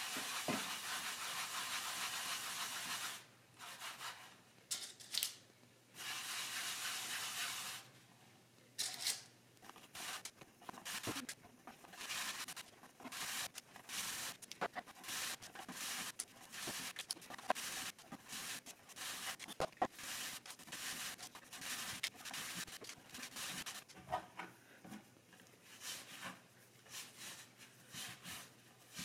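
An even hiss for about the first three seconds, then a long run of short, irregular rubbing and scraping strokes.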